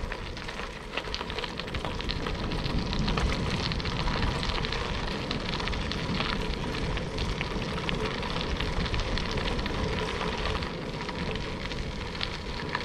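Bicycle tyres rolling over a gravel road: a steady crunching crackle of small stones, with wind rumbling on the action camera's microphone.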